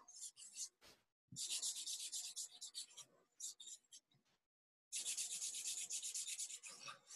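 Felt-tip marker scribbling on paper, colouring in with rapid back-and-forth scratching strokes that come in two longer spells with short pauses between them.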